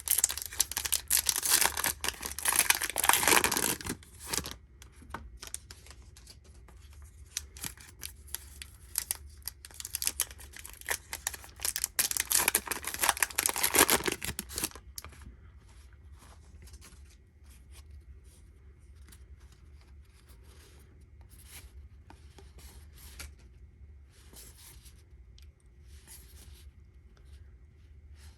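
Baseball card pack wrappers being torn open, two loud tearing bursts about ten seconds apart, followed by quiet rustling and small ticks of cards being handled.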